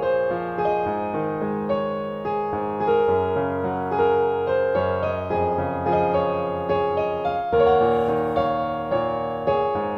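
Background piano music: notes struck one after another and left to ring.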